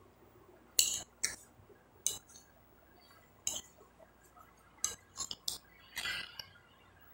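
A metal spoon clinking and scraping against a glass plate as food is scooped up: a scatter of short, sharp clinks at irregular intervals, the loudest about a second in.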